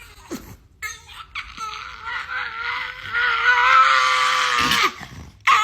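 Dog crying in a long, wavering howl that starts about a second in and lasts around three seconds, with a short yelp-like cry before it and another howl beginning at the very end.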